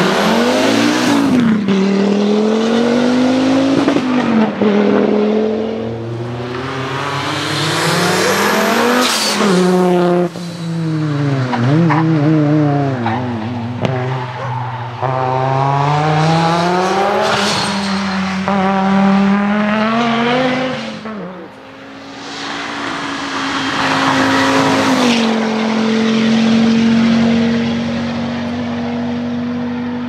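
Audi quattro rally cars' turbocharged five-cylinder engines revving hard, the note climbing and dropping repeatedly with gear changes and lifts off the throttle as the cars pass. Over the last several seconds a single engine holds a steadier, fainter note.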